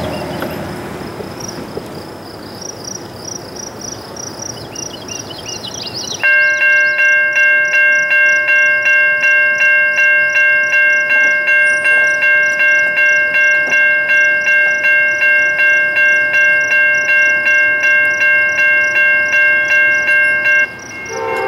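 A loud bell ringing steadily, about two strokes a second, that starts suddenly about six seconds in and cuts off near the end, over a rhythmic high insect chirping.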